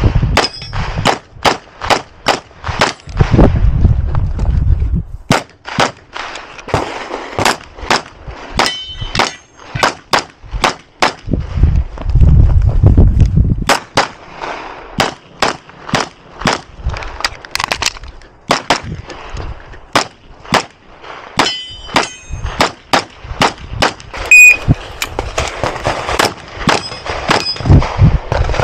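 Strings of rapid 9 mm pistol shots from a Grand Power XCalibur red-dot pistol, with short pauses between strings, and steel targets ringing when hit. Two stretches of low rumble sound alongside the shots, about 3 seconds in and again around 12 seconds.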